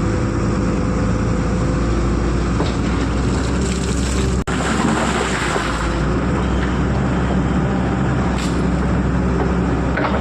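Tata Hitachi excavator's diesel engine running steadily, with a hiss rising around the middle. The sound drops out for a split second about four and a half seconds in.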